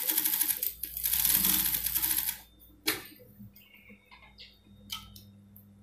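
Typical industrial single-needle sewing machine stitching a seam at speed: a fast, even rattle with a brief break about a second in, stopping about two and a half seconds in. A sharp click and light fabric-handling noises follow.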